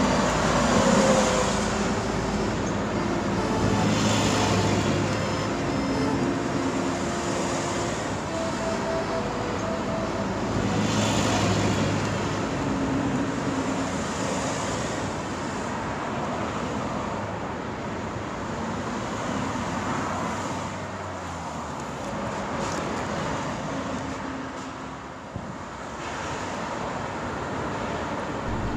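Steady road traffic noise of passing motor vehicles, with short held tones at a few different pitches coming and going over it.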